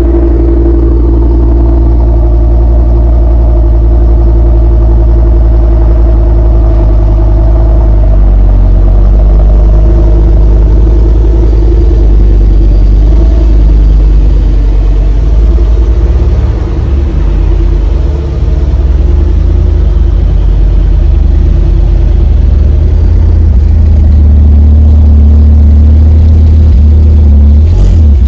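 Ford Focus ST/RS turbocharged five-cylinder engines running loud and low as the cars creep slowly by, with a short dip in level about two-thirds of the way through.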